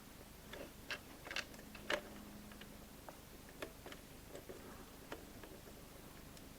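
Faint, irregular small clicks and taps, a few louder ones close together in the first two seconds, as of small objects being handled.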